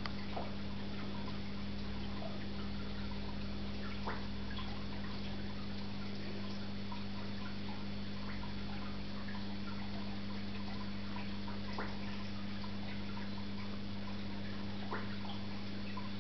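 Aquarium water pump or filter humming steadily, with water trickling and dripping and a few clicks.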